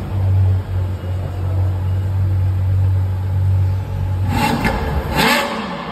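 V12 supercar engine idling steadily with a low, even hum on its stock exhaust. About four seconds in, two short bursts of louder rushing noise cover it as the idle fades.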